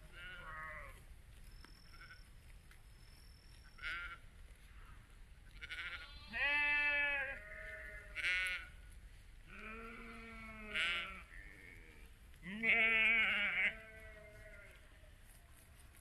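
Several sheep in a grazing flock bleating, one after another, with the loudest long bleats coming in the middle and near the end.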